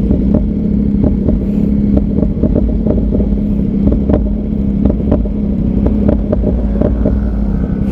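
Motorcycle engine running at a steady pitch over a low rumble, with scattered light clicks.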